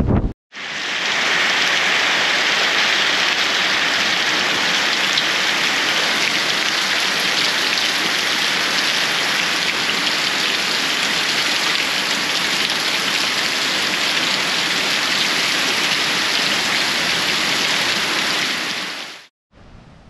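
Heavy rain pouring down in a dense, steady hiss. It begins about half a second in and cuts off abruptly near the end.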